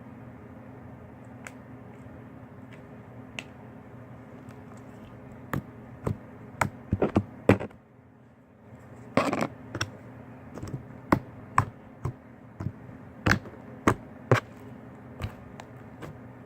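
Slime being squished and worked by hand, giving irregular sharp pops and clicks that start about a third of the way in, over a steady low room hum.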